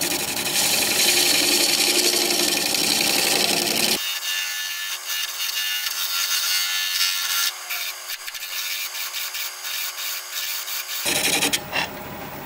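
A gouge cutting a spinning Red Mallee burl on a wood lathe, a loud rough scraping. From about four seconds in the cuts turn lighter and broken, over a faint steady lathe hum. A heavier cut about eleven seconds in then stops.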